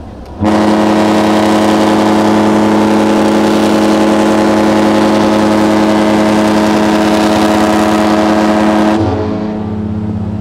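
Cruise ship's horn sounding one long, steady blast of about eight and a half seconds as a harbour salute, cutting off near the end and leaving a quieter low echo.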